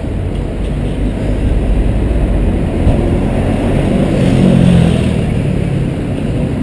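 Road traffic noise, a steady low rumble that swells as a vehicle passes about four to five seconds in.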